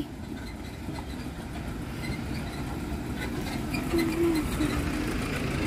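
Maruti Suzuki Gypsy 4x4 driving slowly along a sandy dirt lane, its petrol engine running with the tyres crunching over the dirt, growing gradually louder as it comes close and passes.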